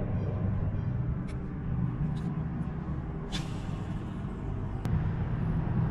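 A boat motor running with a steady low hum, with a few light clicks and one short hiss about three seconds in.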